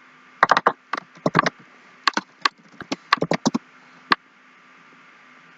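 Typing on a computer keyboard: a quick, irregular run of keystrokes lasting about three and a half seconds, then a single separate keystroke.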